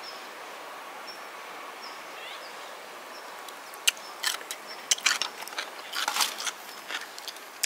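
Sharp clicks and taps of tableware being handled: wooden chopsticks and a plastic tub knocking against the table and dishes. They come in an irregular string starting about four seconds in, over a steady outdoor background hiss.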